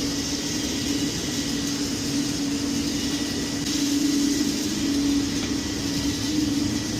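Steady hum and rush of boiler-room machinery running, with a low tone that holds throughout and swells a little about four seconds in.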